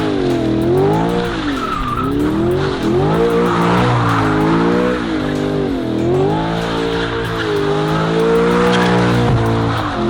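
A car doing donuts: the engine revs up and down over and over while the tyres squeal and skid on the pavement.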